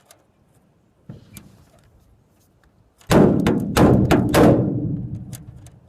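Knocks and clatter from a broken boat paddle being handled against the boat: a small knock about a second in, then a run of loud thumps from about three seconds in that fade away over a couple of seconds.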